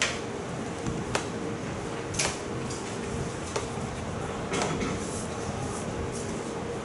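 Classroom room noise: a steady faint hum under a background hiss, broken by five or six sharp taps and knocks at irregular intervals about a second apart.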